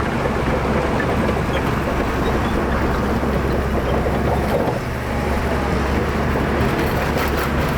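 Heavy diesel engine of earthmoving machinery running steadily under load, easing off briefly about five seconds in.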